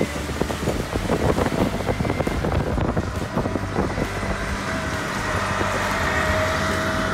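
Road and wind noise from a moving car on a wet highway, with wind buffeting on the microphone. A steady engine hum comes in about halfway through.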